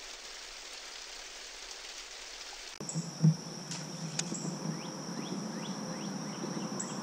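An even, rain-like hiss that cuts off about three seconds in and gives way to outdoor river ambience. A steady high insect drone runs under a few short falling bird chirps, with one loud thump just after the change.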